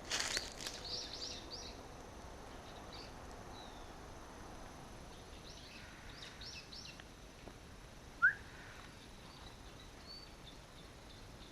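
Wild birds chirping in small groups of short high notes, with one sharper rising chirp about eight seconds in, the loudest sound. Brief rustling at the very start.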